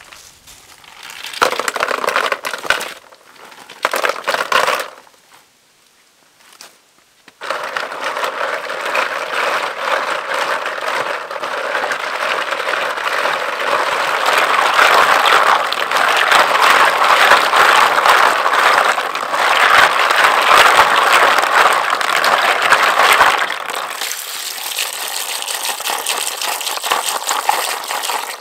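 Stream snails clattering into a plastic basin in two short pours. After that comes a long stretch of hard shells rattling and scraping against each other in sloshing water as they are scrubbed by hand, which eases to softer churning water near the end.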